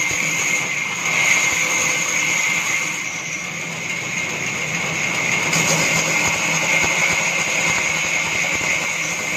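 Band saw running steadily with its blade cutting through a wooden board, a constant high-pitched whine over the noise of the cut.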